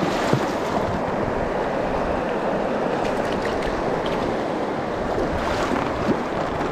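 Shallow river water rushing over stones close to the microphone, with a few short splashes as a hooked rainbow trout thrashes at the surface while being landed by hand.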